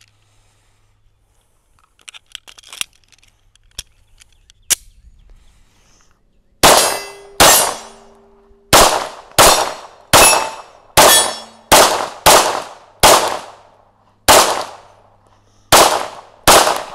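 Sig P365 Macro 9mm pistol with a Faxon threaded barrel and compensator firing a steady string of about fifteen sharp shots, one to two a second, with no stoppage. The shots start about six and a half seconds in, after a few faint clicks as the pistol is handled.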